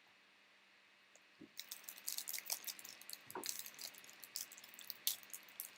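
Crinkling and crackling of a trading-card pack wrapper being handled, with rapid irregular crackles starting about a second and a half in.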